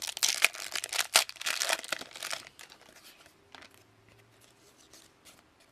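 Foil wrapper of a 2006 Razor Poker trading card pack crinkling as it is torn open, busy for about two and a half seconds, then only a few faint rustles and clicks as the cards are handled.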